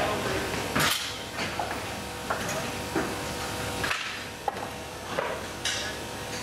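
Metal parts of a fairground ride clanking and knocking as the ride is dismantled: single sharp clanks at irregular intervals, about half a second to a second apart, over a steady hum.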